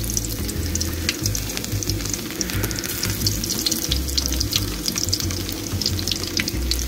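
Chopped shallots sizzling in hot oil in a wok, with a steady hiss and many fine crackles, over a low rumble.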